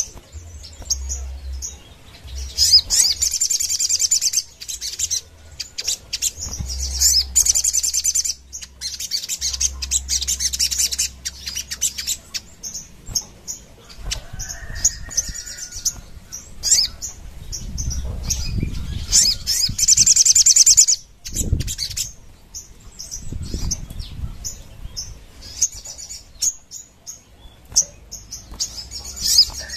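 A caged sunbird singing fast, rapid-fire chattering song in repeated loud bursts of two or three seconds each, with short pauses and single chips between them. Its wings flutter as it flies about the cage, with a few soft thumps in the middle stretch.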